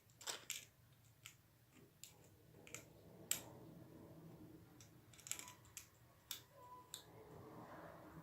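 Faint, scattered small clicks and taps from a syringe being handled at a door hinge as sunflower oil is put into the squeaky hinge. The sharpest click comes about three seconds in.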